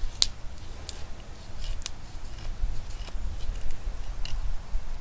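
A bushcraft knife blade shaving curls down a wooden stick to make a feather stick: about seven short, sharp scraping cuts at irregular intervals, the sharpest just after the start.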